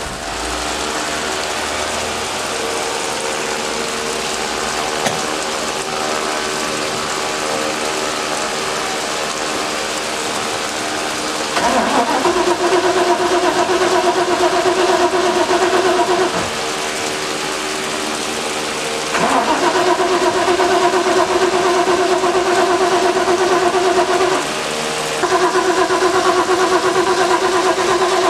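A steady mechanical hum for the first ten seconds or so, then the starter cranks the MerCruiser 7.4 L 454 big-block in three long bursts of several seconds each, a steady whirring that never catches. The engine turns over but doesn't fire, which the owner puts down to fuel not yet being drawn from the tank.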